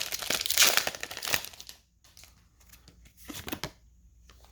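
Foil booster-pack wrapper crinkling and tearing as a pack is ripped open, for about the first two seconds, then one more short crinkle near the end.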